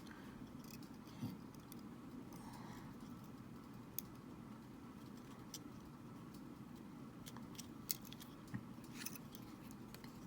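Faint scattered small clicks and taps from handling the opened Joy-Con's small parts while a ribbon cable is worked back into its connector, about half a dozen over the stretch.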